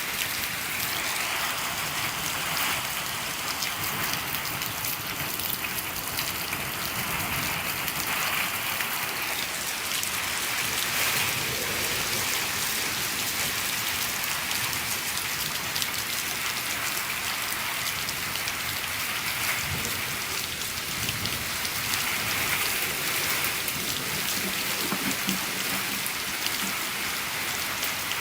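Steady rain drumming on the roof of a shed, a dense even patter of many drops.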